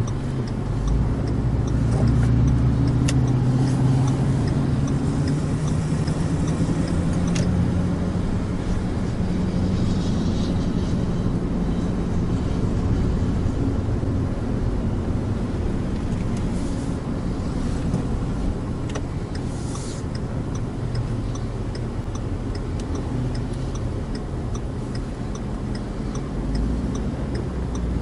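Cabin sound of a car driving: the engine note rises as it accelerates over the first several seconds, then settles into a steady cruise with tyre and road noise. A faint, even ticking runs underneath.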